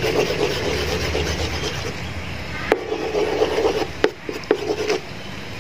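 Eggs, sugar and salt being stirred briskly together in the well of maida for porotta dough: a steady scraping rub in short spells, with a few sharp clicks.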